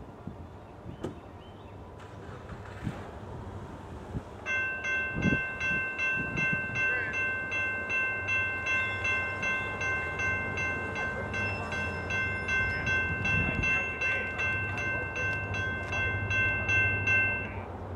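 Grade crossing signal bell ringing about twice a second, starting about four seconds in and stopping shortly before the end. Under it, the low rumble of the approaching diesel locomotives grows louder.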